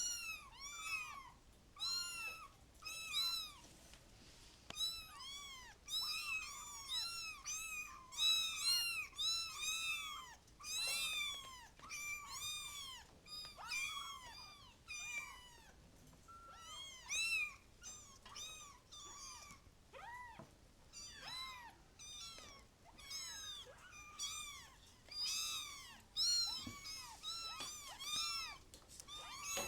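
Kittens mewing over and over: short, high-pitched rising-and-falling mews, several a second, often overlapping one another.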